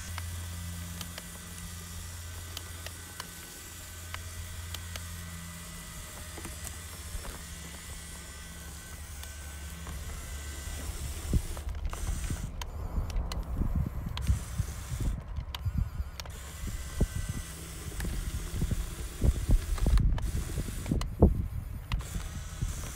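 RC crawler's electric motor and gearbox whirring as it tows a small trailer, with a faint steady whine through the first half. In the second half come irregular knocks and crunches as the wheels go over ice and frozen mud.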